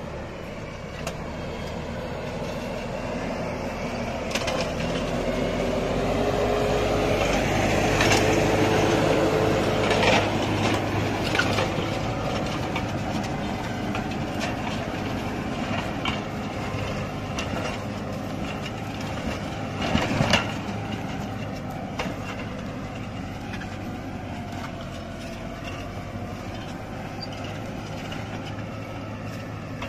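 New Holland TD590 tractor's diesel engine working under load pulling a plough. It grows louder, its pitch rising slightly, to a peak about eight to ten seconds in, then slowly fades. A few sharp knocks come through, the loudest about twenty seconds in.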